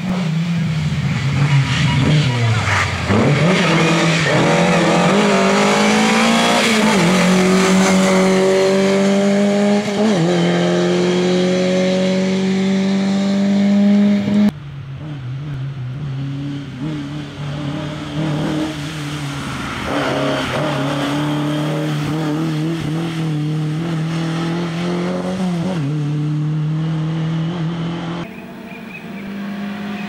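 Lada VFTS rally car's four-cylinder engine at full throttle, its pitch climbing through the gears with two drops at upshifts. About halfway through it becomes slightly quieter and rises and falls a few times as the car revs and eases off.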